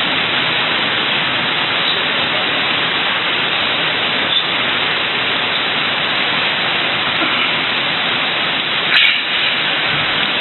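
Steady, loud hiss with no speech, with a brief knock about nine seconds in.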